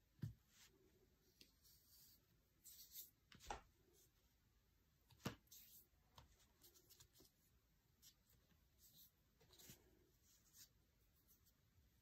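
Faint rubbing and scraping of fingers pressing clay into a flexible mould and pulling the excess off, with three soft knocks in the first half.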